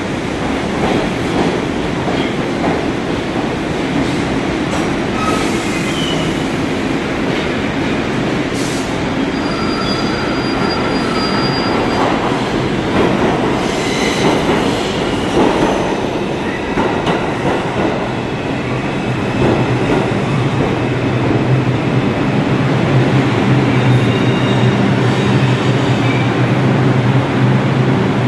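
New York City subway trains in an underground station: an R62A train running along the platform, then an R142-family 5 train pulling in with rumbling, rail clatter and several short wheel and brake squeals. In the second half a steady low hum grows stronger as the train stands at the platform.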